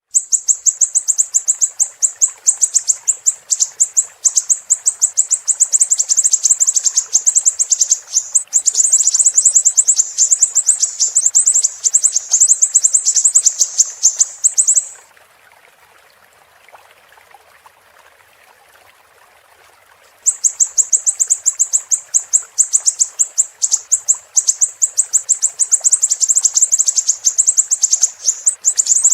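Siri-siri bird singing a rapid run of high, sharp chirps, many per second, that stops about halfway through and starts again some five seconds later. A faint steady hiss of running water lies underneath.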